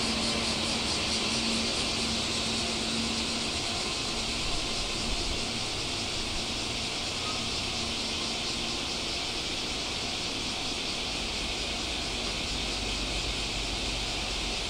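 Steady high-pitched shrilling of a summer insect chorus. A low, even hum fades out over the first few seconds.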